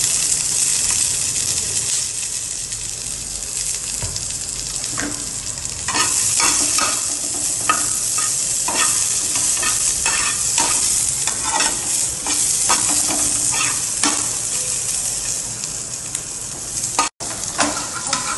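Chopped capsicum, onion and garlic sizzling in hot oil in a frying pan, louder from about six seconds in, with a spatula scraping and knocking against the pan as the vegetables are stirred.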